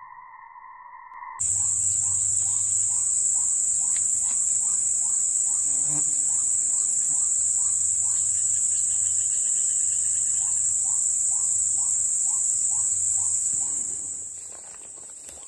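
Loud, steady, high-pitched insect drone that starts abruptly about a second and a half in and fades near the end. Short repeated chirps sound underneath at about two a second.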